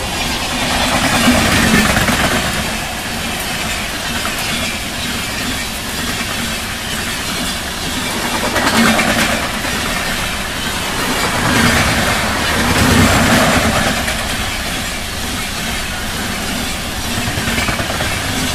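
LHB passenger coaches of an express train rolling past close by: a steady, heavy rumble of wheels on rails, swelling louder every few seconds as the bogies go by.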